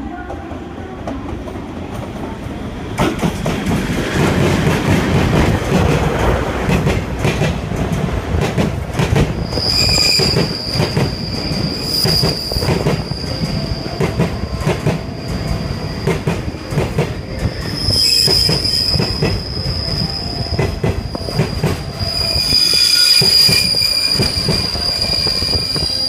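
EF81 electric locomotive and the Twilight Express sleeper cars pulling into the station past close by: a low rumble of wheels that swells about three seconds in, with clicks over the rail joints and points. From about ten seconds in the wheels squeal with a high steady tone that breaks off briefly twice.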